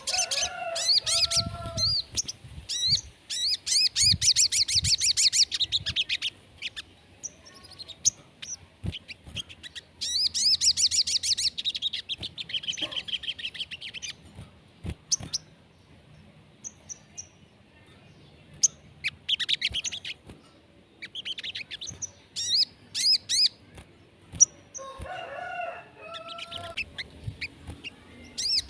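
Crimson sunbird song: repeated bursts of fast, high-pitched trilled phrases lasting a few seconds each, with short chirps in the gaps between them. Lower-pitched calls come in at the very start and again about 25 seconds in.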